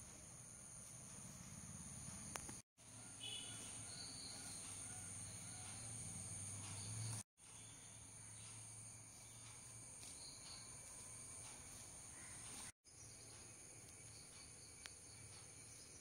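Faint steady high-pitched trilling of insects, with a few faint chirps over it; the sound cuts out for a split second three times.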